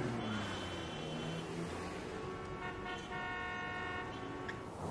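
Car horn sounding in one steady blast of about two seconds, starting about halfway in, over city traffic noise.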